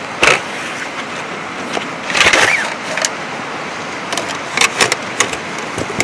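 Metal folding camp table being handled and set up, clattering and clicking, over a steady hiss. A louder rattle comes about two seconds in, and a run of small clicks near the end.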